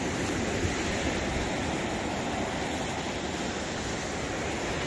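Ocean surf breaking on the beach, a steady, even rushing noise, mixed with wind.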